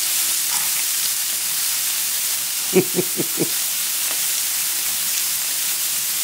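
Lamb rib chops sizzling steadily on a hot cast-iron cauldron-lid griddle as more raw chops are laid on with tongs. About three seconds in, a brief burst of voice cuts in over the sizzle.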